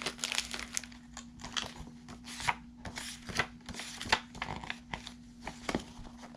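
Pages of a glossy paper booklet being handled and turned: a run of irregular paper rustles and crinkles.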